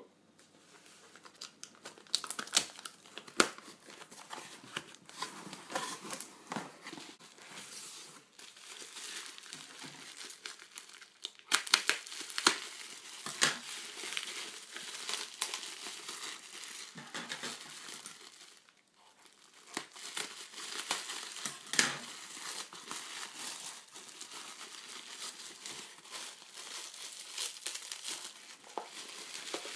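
Hands unpacking a parcel: packing tape and cardboard tearing, then plastic bubble wrap crinkling and crackling as it is pulled open, in irregular bursts of sharp crackles.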